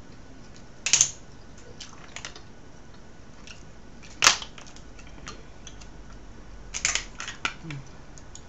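Sharp clicks and clacks of shells and fish bones being handled over a plate as food is picked apart by hand. There is a loud click about a second in, another about four seconds in, and a quick cluster of clacks near seven seconds, with lighter ticks between.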